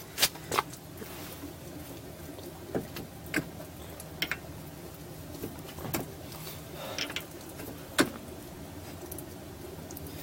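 Scattered metal clinks and knocks as the track bar is worked into line with its mount under the Jeep Cherokee XJ, the sharpest knock about eight seconds in, over a faint steady low hum.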